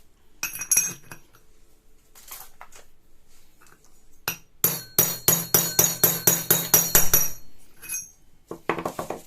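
Hammer tapping a bearing driver to press a bearing into the Honda PCX 150's secondary pulley hub. The main run is about a dozen sharp, ringing metal strikes, some four a second, which come a few seconds in after some light clinks of the parts being handled.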